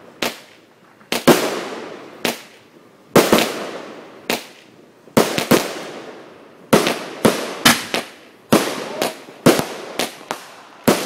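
Aerial fireworks firing shot after shot: a series of sharp bangs, each with a fading echo, about one a second at first and coming faster and closer together in the second half.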